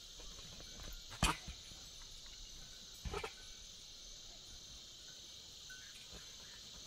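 Insects, crickets by their sound, chirring in a steady high-pitched drone. A single sharp click comes about a second in, and a short cluster of knocks about three seconds in.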